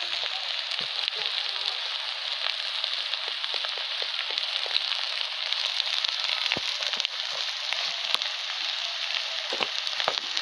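Food frying in hot oil: a steady sizzle with scattered small crackles and pops.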